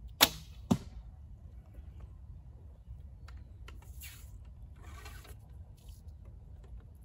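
Heavy Manchu bow shot: a loud sharp crack of the string on release, then a second sharp knock about half a second later. Around four and five seconds in come softer rustles and scrapes of a new arrow being handled and nocked.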